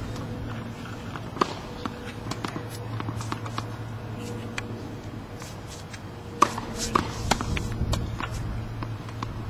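Tennis balls struck by rackets and bouncing on a hard court: scattered sharp pops, one about a second and a half in and a close group of three near six and a half to seven seconds, over a steady low hum.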